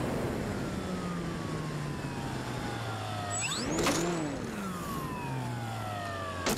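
Electric motor of an E-flite Sukhoi RC plane, heard from the plane's onboard camera with rushing air noise, whining as its pitch slowly falls. About three and a half seconds in it revs up briefly, then winds down again, and a sharp knock comes near the end.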